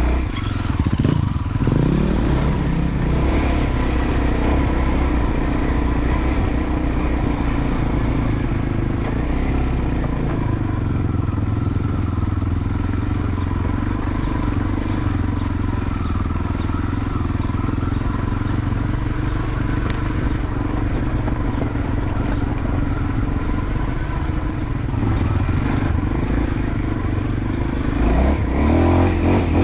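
Enduro motorcycle engine running steadily under load as the bike climbs a trail, with the revs rising about a second in and again near the end.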